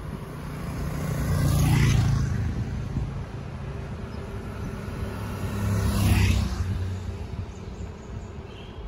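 Two motor vehicles passing close by, one about two seconds in and another about six seconds in, each swelling up and fading away, over a steady low rumble of wind on the microphone from the downhill ride.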